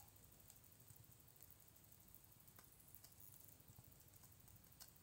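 Near silence: room tone, with a few faint ticks.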